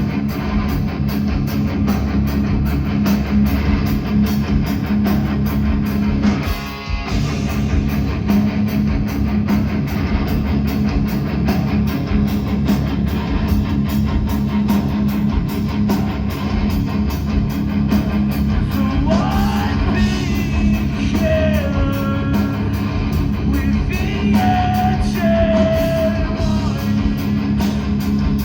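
Live metalcore band playing loud with distorted electric guitars and drums, dropping out briefly about six and a half seconds in. Sung and yelled vocals come in at about nineteen seconds.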